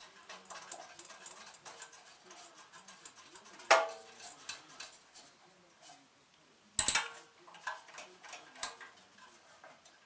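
Light metallic clinks and rattles of hand tools and engine parts being handled, with two sharp metal clanks about 4 and 7 seconds in, as the spark plug is put back into the generator engine.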